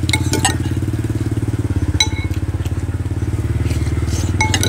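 Small motorcycle engine running steadily close by, a low even pulsing that does not change pitch. A spoon clinks against a ceramic bowl a few times, with a short ring, near the start, about two seconds in and near the end.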